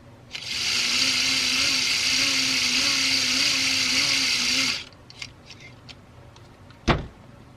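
Bell & Howell Filmo 70 DL 16mm camera's spring-wound clockwork mechanism running for about four and a half seconds, freshly oiled with sewing machine oil: a steady whir with a slightly wavering hum that stops abruptly. A single sharp knock near the end.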